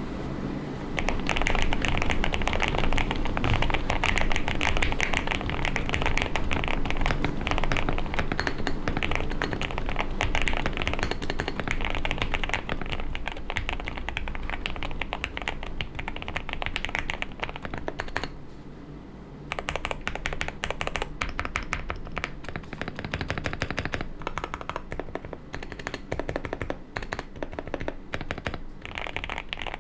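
Typing on a QK65 mechanical keyboard fitted with Gateron Oil King linear switches: fast, continuous keystrokes with a short pause a little past the middle.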